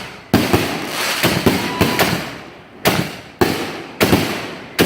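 Fireworks going off: a run of about eight sharp bangs in under five seconds, each dying away quickly before the next.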